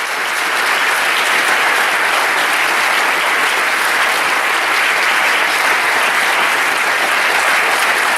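A large audience clapping, swelling over the first second and then holding steady and loud.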